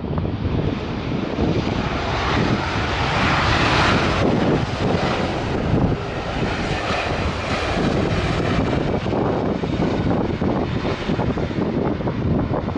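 Jet engines of an Air Serbia Airbus A320-family airliner moving past close by: a loud, steady roar with a rumble underneath, its hiss strongest a few seconds in.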